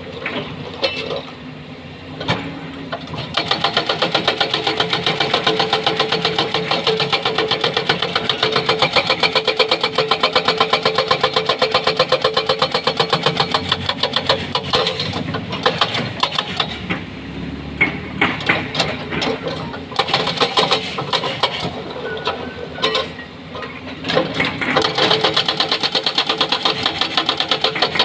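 Hydraulic breaker on a Doosan excavator hammering rock in a fast, even stream of blows over the running engine, stopping briefly a few times.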